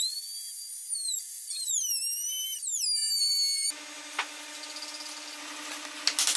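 Router motor whining at a high pitch, the pitch sagging and recovering as the bit cuts a groove along a wooden board, then cutting off suddenly a little past halfway. After that a low steady hum with a few light taps, and a loud fast rattle starts just before the end.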